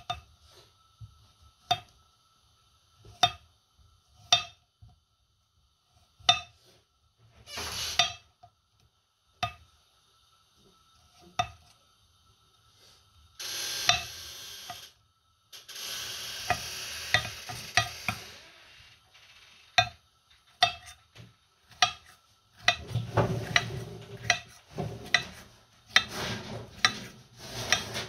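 A chef's knife cuts a cucumber on a granite chopping board. The blade strikes the stone in single sharp clicks every second or two, with two longer scraping slices partway through as it cuts lengthwise strips. Near the end come quick, rapid chops as it dices.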